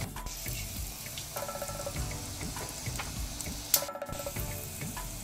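Light background music over faint sizzling of a spice tempering in hot coconut oil in a clay pot as a spoon stirs it, with one sharp click a little before four seconds in.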